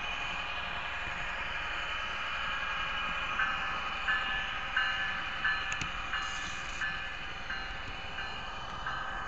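An N-scale model train running on its track, heard from a camera riding aboard: a steady whine and rumble of the small motor and wheels. From a few seconds in comes a regular click about every two-thirds of a second as the wheels pass over rail joints.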